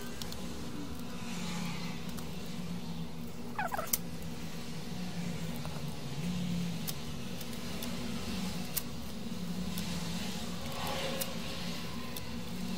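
Steady low motor-like hum, with a few light clicks and a short squeak about three and a half seconds in as the CD player's disc-tray mechanism is handled.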